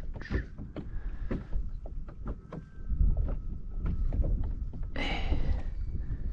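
Water splashing and sloshing around a kayak and a landing net holding a bonefish, with many small irregular splashes and a louder splash about five seconds in, over a steady low rumble.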